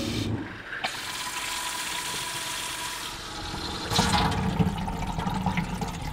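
Water running from a kitchen faucet as a freshly filled under-sink electric mini-tank water heater is vented through it, the tank's air pushed out at the tap. The rush grows louder about four seconds in.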